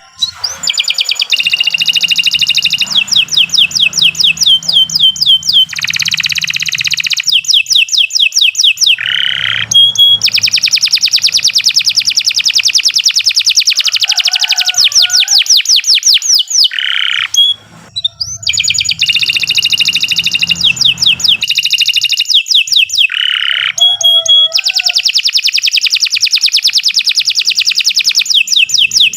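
Domestic canary singing loud, long trills of fast, evenly repeated high notes. The trills change phrase every few seconds, with a short break about two-thirds through.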